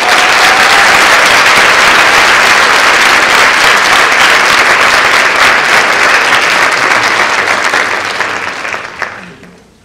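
Audience applauding, loud and steady, then dying away about nine seconds in.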